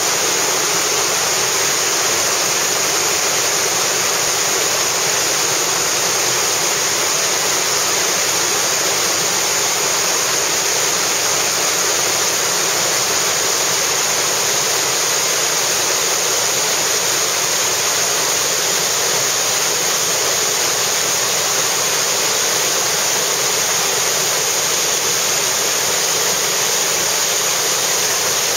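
Waterfall pouring down a rocky gorge into its pool: a loud, steady rush of falling water that never changes.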